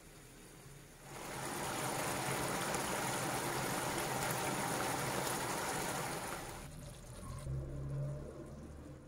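Liver in a red, spicy sauce (kebda mchermla) simmering in a frying pan: a steady, hissing sizzle that starts about a second in and cuts off suddenly near seven seconds. A brief low hum follows.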